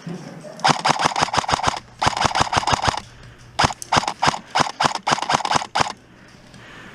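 Airsoft electric rifle firing full-auto in three bursts, about ten shots a second, the second burst short and the third the longest.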